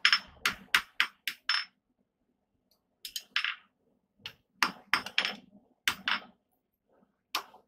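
Hand hammer striking a red-hot flat steel bar on an anvil, each blow with a short metallic ring. There is a quick run of about six blows, a pause of over a second, then more blows in short groups of two to four.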